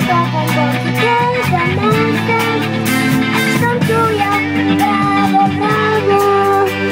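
Live rock band playing: a young girl sings the lead melody over electric guitar and a drum kit.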